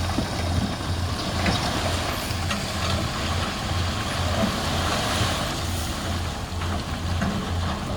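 Heavy diesel engine of earthmoving machinery running steadily with a pulsing low rumble, with a few scattered sharp knocks over it.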